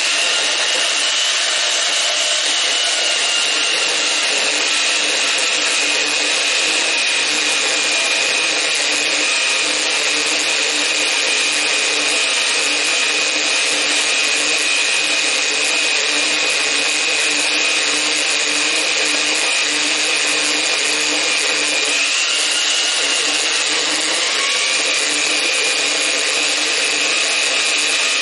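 Metal-cutting band saw running and cutting through square steel tube: a steady high whine from the blade over the motor's hum, wavering slightly in pitch about three quarters of the way through.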